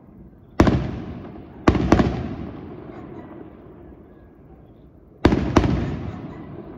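Aerial fireworks bursting overhead: a sharp bang, a quick double bang about a second later, and another double bang near the end, each echoing away over a few seconds.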